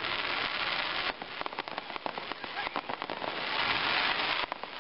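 Aerial fireworks bursting into crackling stars: a dense crackle for about the first second, then rapid sharp pops, then the dense crackle again from about three seconds in.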